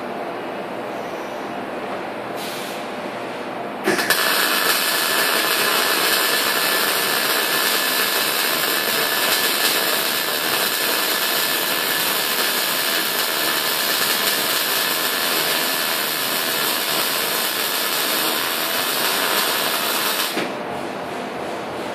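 Electric arc welding a steel hinge onto a door frame: the arc strikes suddenly about four seconds in and runs as one steady, even crackle for about sixteen seconds before cutting off.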